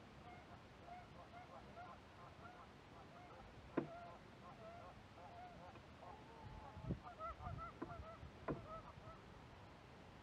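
Faint honking of a flock of geese, many short overlapping calls repeating all through. A sharp knock comes about four seconds in, and a few more knocks come later on.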